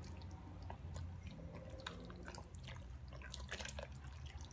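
A spoon stirring thick sauce in an Instant Pot's inner pot: soft wet squelches and scattered light clicks of the spoon against the pot, over a faint low hum.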